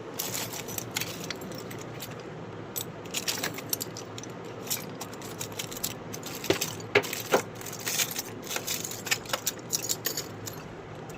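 Small metal parts and tools clinking and tapping against each other in irregular sharp clicks, a few of them ringing briefly, as a rusted metal gas nozzle is handled and cleaned. A steady low hum runs underneath.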